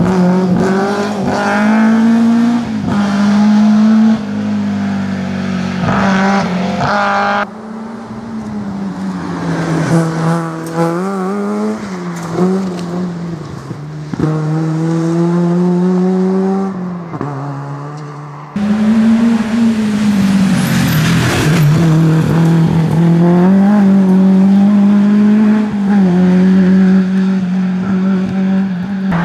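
Rally car engines at full song on a gravel stage, revving up and down through gear changes as the cars drive through bends; first a BMW E30 M3's four-cylinder, then another car. The sound changes abruptly about 7 and 18 seconds in as separate passes are cut together.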